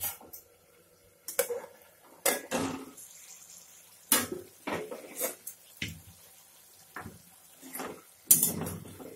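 Metal cookware clattering: a pan lid and utensils knocked and set down in a string of separate clinks and knocks, some briefly ringing.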